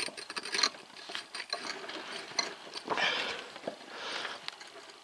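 Steel timing gears in an open Lifan 20 hp engine crankcase clicking and rattling as a shaft is turned by hand to bring the timing marks on the teeth into line, with soft rustles around three and four seconds in.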